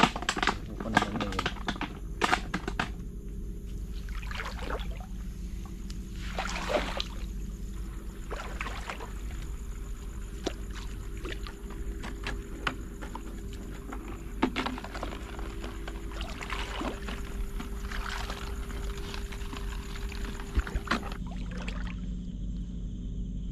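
Shallow seawater sloshing and splashing as someone wades and works a scoop net, with scattered short splashes and knocks.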